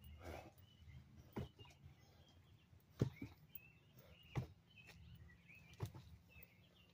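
A body bumping against a tree trunk: a series of thuds about every one and a half seconds, the loudest about three seconds in, one of them doubled. Birds chirp faintly in the background.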